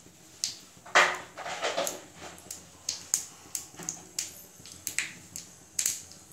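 Mustard seeds spluttering in hot mustard oil in a small tadka ladle: a louder sizzling burst about a second in, then sharp, irregular pops, a few each second. The popping is the sign that the oil is hot enough for tempering.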